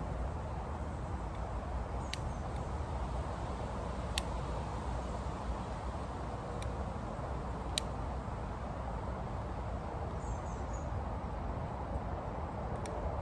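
Outdoor woodland ambience: a steady low background rumble with a handful of sharp ticks scattered through it, and a brief twitter of high small-bird notes about ten seconds in.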